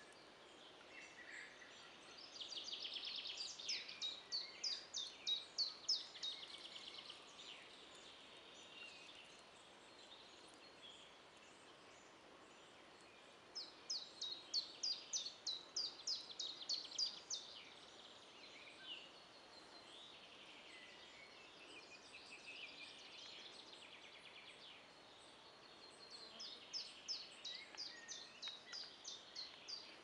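A songbird singing three bouts of song, each a few seconds of quick, evenly spaced high notes slurring downward, about ten seconds apart. Under it is a faint steady hiss.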